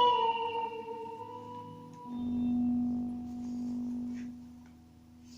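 Electric guitar through a modelling amp effects unit: a held note slides down in pitch and fades, then about two seconds in a low note rings steadily, swelling up and fading away twice.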